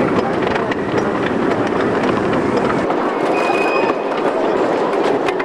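Wooden roller coaster train running along its track: a steady, loud rattling rumble of the wheels on the rails, with rapid clacking throughout.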